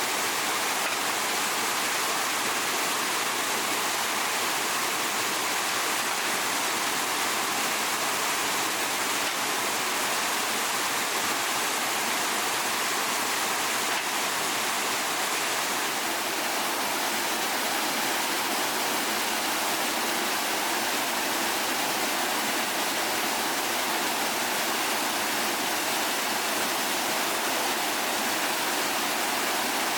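Steady rushing of flowing water, an even hiss-like rush with no breaks or changes.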